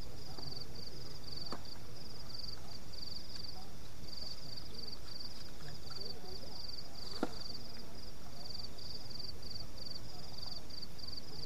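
Crickets chirping in a steady run of short pulsed trills. Two sharp clicks cut through, the louder one a little after the middle.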